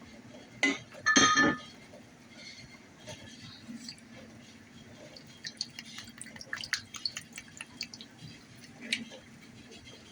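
Kitchen sounds at a pot of soup: a utensil clinks against the pot with a brief metallic ring about a second in, then a run of small taps, clicks and drips. A steady low hum runs underneath.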